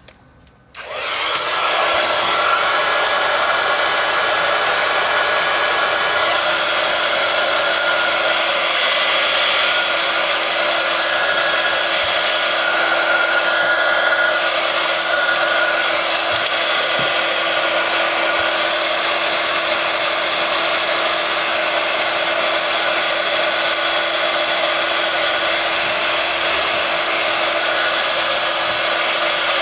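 Hot-air blower switched on just under a second in, then running steadily with a constant fan rush and a steady hum. It is heating the phone's front glass to soften the screen adhesive.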